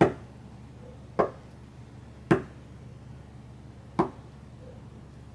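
Four sharp knocks of a hand striking a wooden desk, irregularly spaced about one to two seconds apart, the first the loudest.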